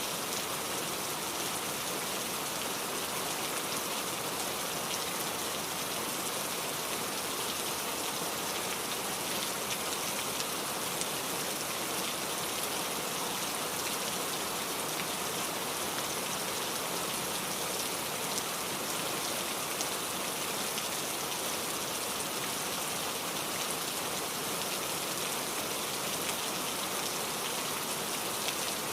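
Steady rain falling and pattering on a surface, a dense even hiss of many drops with no let-up.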